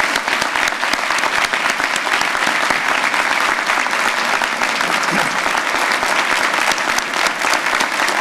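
Large banquet audience giving sustained applause, many people clapping together in a steady dense patter.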